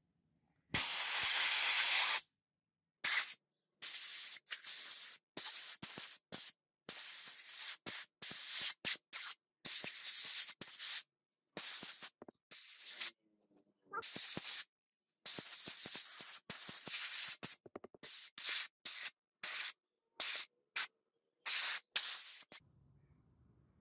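Handheld sprayer hissing in on-off bursts as its trigger is worked: one long blast about a second in, then a run of short spurts, some a fraction of a second, others nearly a second long, with silence between.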